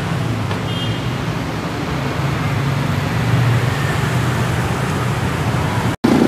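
Steady low rumble of road traffic with a hiss over it, broken by a brief dropout near the end.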